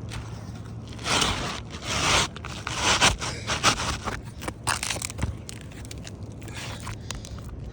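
Gritty scraping and crunching on asphalt roof shingles, in a few loud bursts over the first three seconds, then lighter clicks and rustles.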